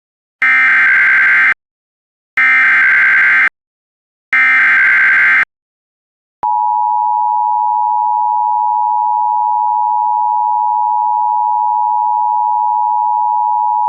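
Emergency Alert System signal: three bursts of SAME digital header data, each about a second long, then after a short gap a long, steady, loud attention tone starting about six seconds in, which announces a severe thunderstorm warning.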